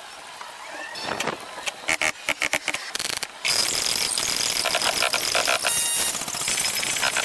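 Bamboo construction work: a quick run of knocks and taps, then from about three and a half seconds in a loud steady hiss with a high whine.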